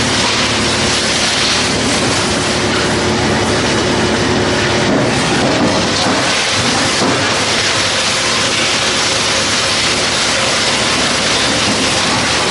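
Drum wood chipper running and shredding wood into chips: a loud, steady clattering rush over the low hum of the machine.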